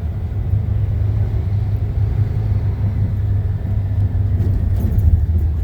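Dump truck's diesel engine running with a steady low rumble.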